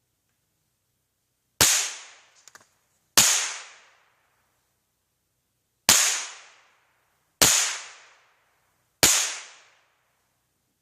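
Marlin Model 795 semi-automatic .22 rifle firing five single shots, unevenly spaced about 1.5 to 2.7 seconds apart, each crack trailing off quickly. A couple of faint clicks follow the first shot.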